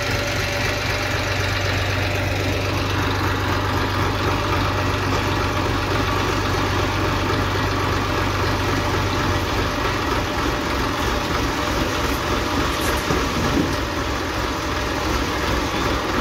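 Massey Ferguson 1035 DI tractor's three-cylinder diesel engine running steadily while its trailer is tipped up to dump a load of soil. Its low hum changes about ten seconds in.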